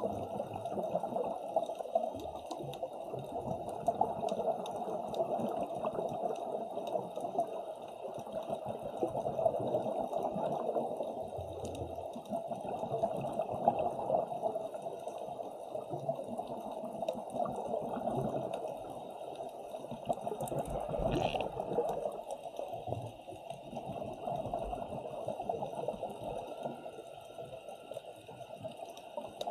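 Underwater water noise picked up by a camera in a dive housing: a steady rushing that swells and ebbs unevenly.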